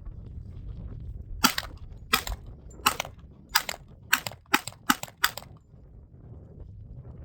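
Eight gunshots from a Hi-Point firearm, at first about two-thirds of a second apart, then quickening over the last four shots.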